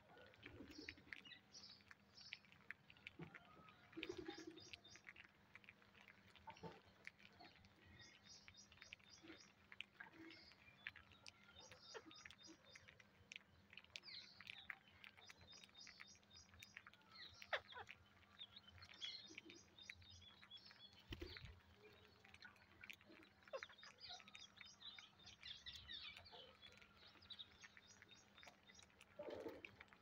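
Rose-ringed parakeets feeding on seed spread on concrete: faint, scattered pecking and seed-cracking clicks. Over them, birds give soft chirps and a short run of quick high notes every few seconds.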